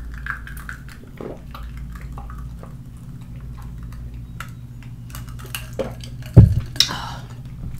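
A drink being sipped from a stemmed glass with ice, with faint small clinks, then the glass set down on the table with one loud thump about six and a half seconds in.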